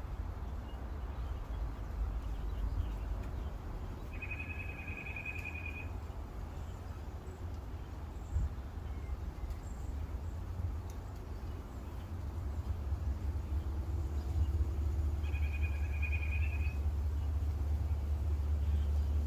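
Two trilled calls, each about one and a half seconds long, from a bird, about four seconds in and again near the end. Underneath, a low steady rumble that grows louder in the second half.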